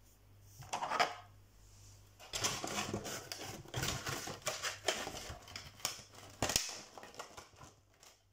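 Clear plastic packaging of a trading-card box being handled: crinkling and crackling with quick clicks and taps, mostly from about two seconds in until near the end.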